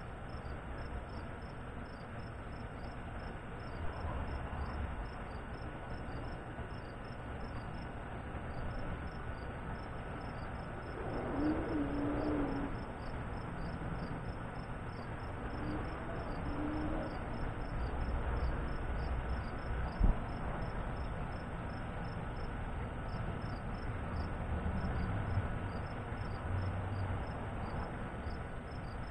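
Insects chirping in a fast, even pulse over a low outdoor rumble, with a brief louder swell about eleven seconds in and a single sharp click about twenty seconds in.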